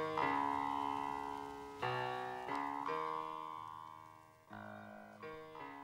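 Background music: slow, soft piano chords with no beat, each struck and left to ring and fade.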